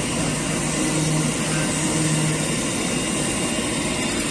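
Machinery running steadily, with a low hum that comes in about a second in and drops out a second and a half later.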